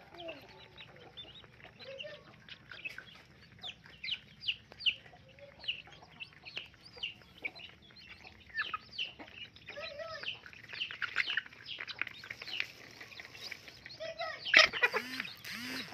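A flock of young chickens peeping and cheeping over food, many short high calls, each falling in pitch, coming thick and fast and growing busier in the second half. The loudest call is a louder squawk about a second before the end.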